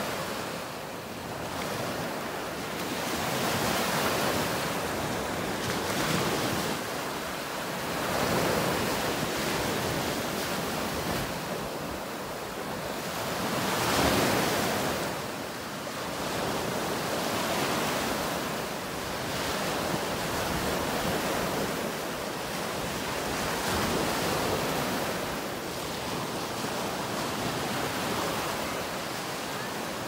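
Small Gulf of Mexico surf breaking and washing up a sandy beach. The rush of water swells and fades every few seconds, with a larger swell about halfway through.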